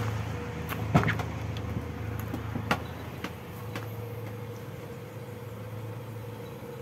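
Toyota Kijang's 1.5-litre four-cylinder engine idling steadily with the air conditioning running, heard as an even hum. A door latch clicks sharply about a second in, with a lighter click near three seconds.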